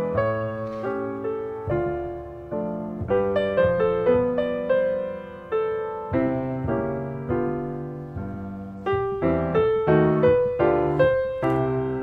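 Piano music: a steady run of notes, each struck and then fading away.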